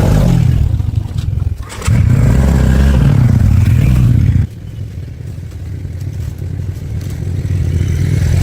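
A motor engine running close by, with a low hum that dips briefly about one and a half seconds in, drops off markedly about four and a half seconds in, then slowly builds again.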